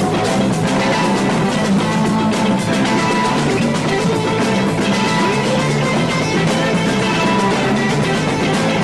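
Psychedelic rock jam: a drum kit and electric guitar playing continuously at full band volume.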